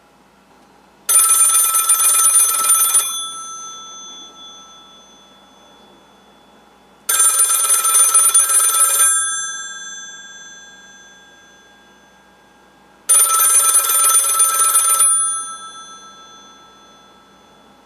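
Old rotary dial telephone's mechanical bell ringing in bursts of about two seconds, three times, about six seconds apart, the bells fading away after each burst.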